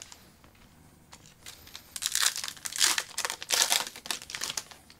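A trading-card pack's foil wrapper being torn open and crinkled by hand, in a run of crackly rustles that starts about a second and a half in.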